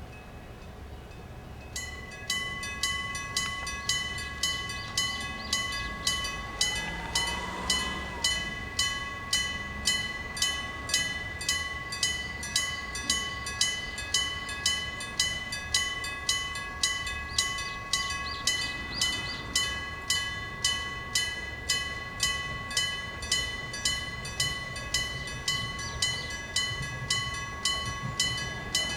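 Level-crossing electric gong (denrei) warning bell, a real bell struck by an electric hammer, starts up about two seconds in and strikes about twice a second in an even rhythm, its ringing tone carrying on between strokes.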